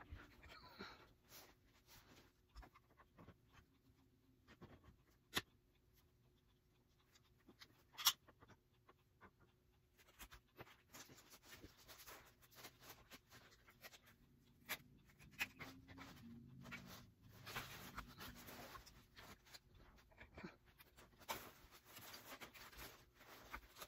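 Faint handling noises from assembling a Chicco stroller: scattered clicks and small knocks of the frame parts, with scratchy rustling of paper and seat fabric. Two sharper clicks stand out, about five and eight seconds in.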